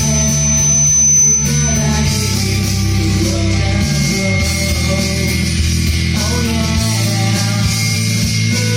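Rock music with bass, guitar and a singing voice.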